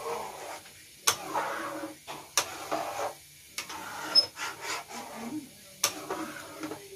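A metal spoon stirring a thick mung bean and coconut milk stew in a pan, scraping through it with several sharp clinks against the pan.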